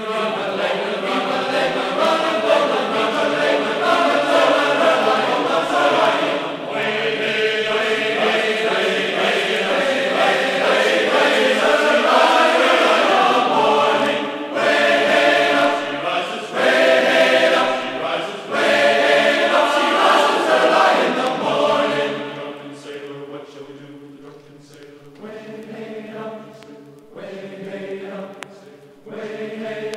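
Choir singing slow, sustained vocal music, with held notes that grow quieter about two-thirds of the way through.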